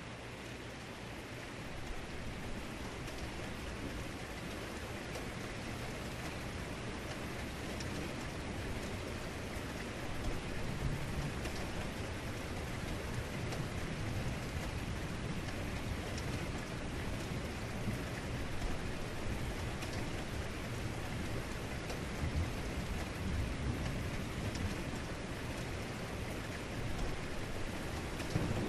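Heavy rain falling steadily, with low thunder rumbling now and then. A louder rumble builds near the end.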